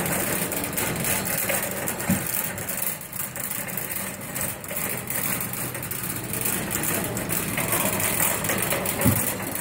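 Wire shopping cart rolling over a concrete store floor: a steady wheel rumble and rattle of the metal basket, with a bump about two seconds in and another near the end.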